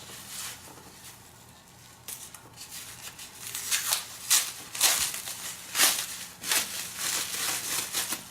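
Packaging crinkling and rustling, with a few sharper crackles and tears, as a wrapped item is unwrapped by hand; it starts about two seconds in.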